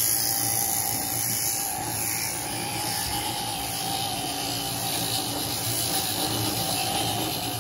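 Sheep-shearing handpiece running steadily as its comb and cutter clip through a ram's fleece.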